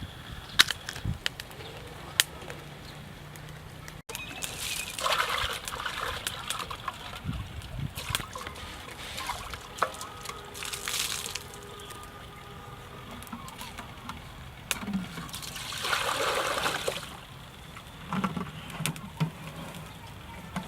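Water splashing and trickling in several short bursts, with scattered small clicks and knocks in between.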